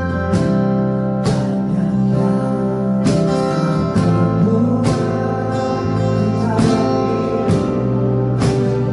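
Worship music led by acoustic guitar, with a strum or beat about once a second over sustained held chords.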